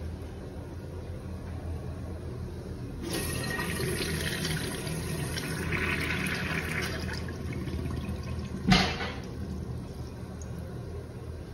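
Eljer Bedfordshire urinal being flushed through its manual flush valve: water starts rushing through the bowl about three seconds in and runs for several seconds. A single sharp knock comes as the rush dies down.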